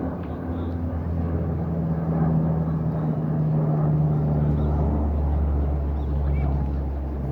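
A steady, low engine drone, its hum shifting slightly in pitch, over outdoor background noise.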